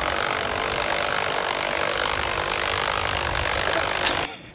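A long, steady slurp through a drinking straw from a cup of iced soda, with air and liquid sucked up together. It cuts off abruptly about four seconds in.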